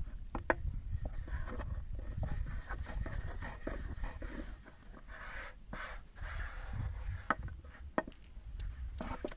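Thin wooden rolling pin rolling and scraping over flatbread dough on a round wooden board, with a few sharp wooden clicks as the pin knocks the board. A low rumble runs underneath.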